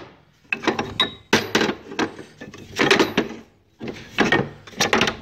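Wooden-handled hammers clattering against each other and the sides of a wooden toolbox tray as a hand rummages through them: irregular knocks and clacks, about ten in all, some with a brief metallic ring.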